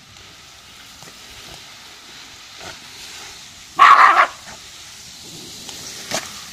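A dog barks once, about four seconds in, as it snaps at the water spray, over the steady hiss of a garden hose spray nozzle.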